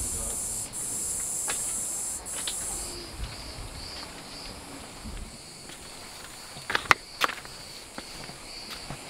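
Insects trilling steadily: a shrill high buzz for the first three seconds, then a softer chirp pulsing a few times a second. A few footsteps scuff on rocky ground, the loudest a pair of sharp steps about seven seconds in.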